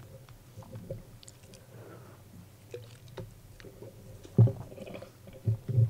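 Faint clicks and handling noise picked up by a lectern microphone, with a short low thud about four and a half seconds in.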